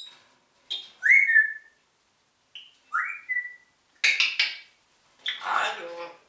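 Congo African grey parrot vocalising: short clicks and raspy calls, with two whistles that rise and then level off, about one and three seconds in, and a longer raspy call near the end.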